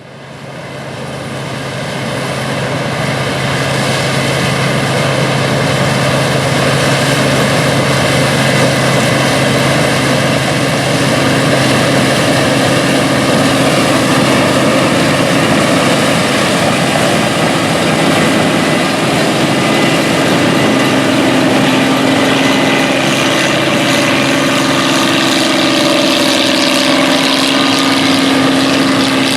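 Combine harvester's engine and threshing machinery running steadily while harvesting corn, fading in at the start, with the pitch of the running shifting about two-thirds of the way through.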